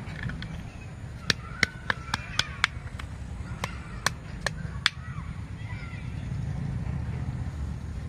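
A wooden stick working over loose garden soil to level a planting bed, giving a scatter of about a dozen sharp clicks and taps in the first half over a low steady rumble.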